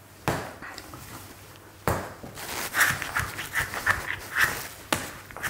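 Soft bread dough dropping and slapping onto a floured wooden workbench three times, about 2 s in being the loudest, with a run of quieter, sticky handling sounds between.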